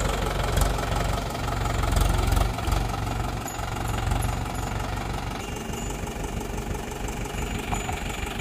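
Mahindra 575 DI tractor's four-cylinder diesel engine running close by as the tractor drives through mud and shallow water, its firing pulses steady and strongest in the low end. It is a little louder about two seconds in, then eases slightly.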